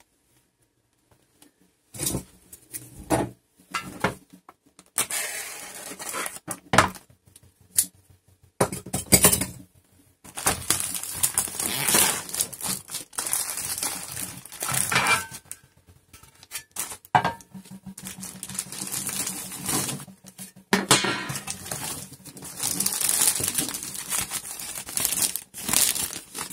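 Clear plastic packaging bags crinkling and rustling as antenna reflector panels are unwrapped and handled, with occasional knocks of the hard parts. It starts about two seconds in as short bursts, then becomes near-continuous from about ten seconds in.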